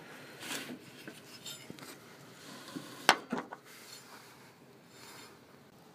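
A few faint metallic clinks and knocks from mower parts being handled around the deck-belt pulleys and springs, the loudest about three seconds in.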